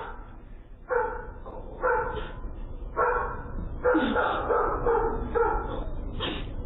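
A dog barking about once a second, heard through a doorbell camera's microphone, with a steady low hum underneath.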